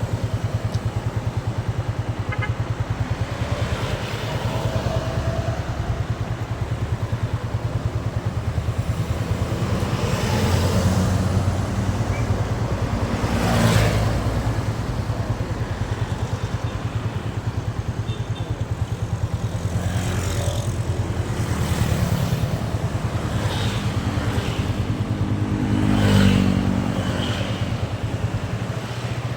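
Yamaha Vixion's single-cylinder four-stroke engine running steadily at a cruise, heard from the rider's seat. Two louder swells from passing vehicles come about halfway through and near the end.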